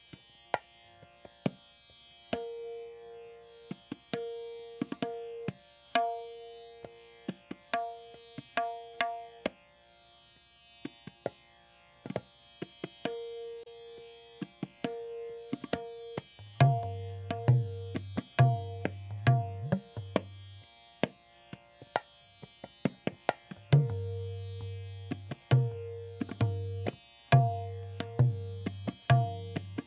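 Background music: sharp hand-drum strokes in a loose rhythm over a steady held drone, with deeper bass notes joining about halfway through.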